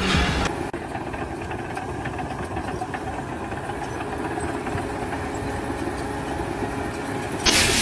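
An engine running steadily with a low rumble. A loud hissing rush cuts in suddenly near the end.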